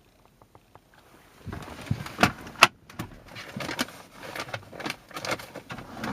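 Objects being handled inside a car: faint clicks at first, then about a second and a half in a busy run of clicks, knocks and rustling, with two sharper knocks just after two seconds in.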